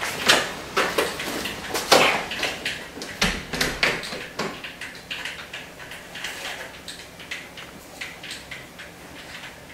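Footsteps and knocks as an entrance door is opened and pulled shut, with a dull thud about three seconds in. Fainter scattered clicks follow.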